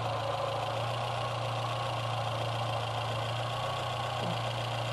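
VW Rabbit four-cylinder engine idling steadily, with the steady buzz of the CIS-Lambda frequency valve now powered through its repaired ground. The buzz means the valve is working and metering fuel correctly, so the idle is improving.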